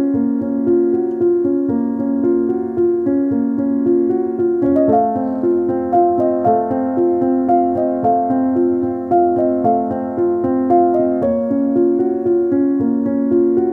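Background piano music: a gentle keyboard melody over held chords, its notes changing at a slow, even pace.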